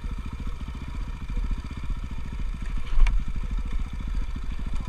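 Motocross dirt bike engine running with a steady, fast exhaust beat, and a single sharp clack about three seconds in.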